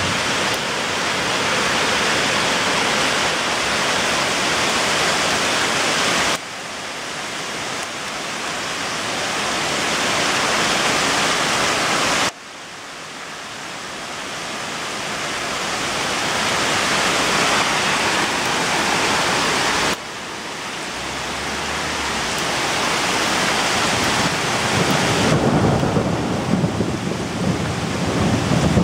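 Steady, dense hiss of heavy rain and hail falling during a hailstorm. It drops off suddenly three times and builds back up each time, and near the end an uneven low rumble joins in.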